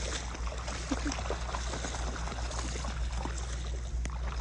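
Dogs and a wading person splashing through shallow floodwater: many small splashes and sloshes over a steady watery hiss.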